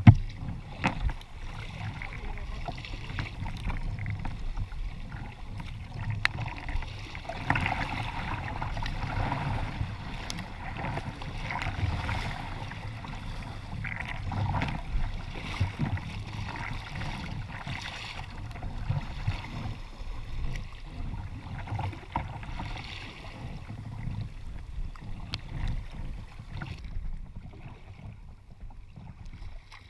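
Water rushing and splashing around a sea kayak's hull as it paddles downwind through choppy waves, the noise swelling and easing with the waves. A sharp knock right at the start is the loudest sound.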